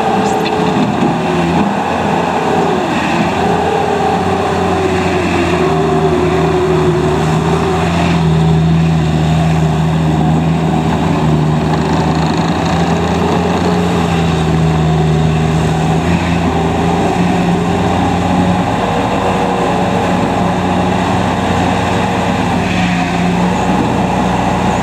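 Bobcat T190 compact track loader's diesel engine running steadily, with a whine that dips in pitch briefly several times as the machine works.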